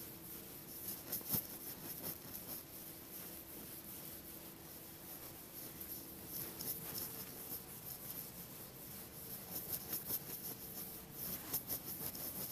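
Whiteboard eraser rubbing across a dry-erase whiteboard in repeated wiping strokes, with a single sharp knock about one and a half seconds in.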